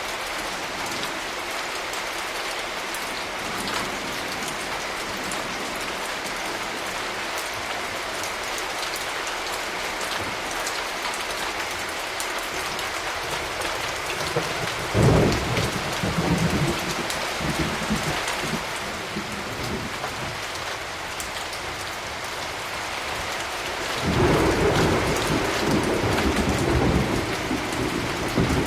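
Steady rain falling, with two peals of thunder. About halfway through there is a sudden crack that rumbles on for a few seconds, and in the last few seconds a longer rolling rumble.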